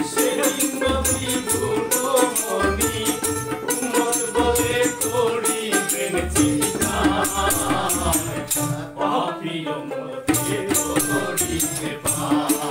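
Live Bengali devotional folk song played on a small electronic keyboard, tabla and a jingling frame drum, with a man singing over a steady drum beat. The jingles stop for a moment near the ninth second, then come back in.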